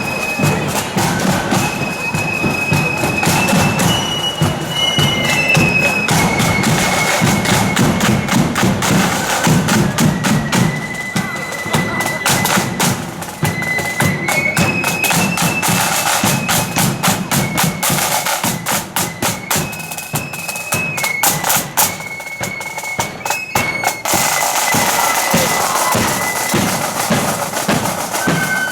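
Marching flute band playing: flutes carry a high, stepping melody over a dense beat of snare and bass drums.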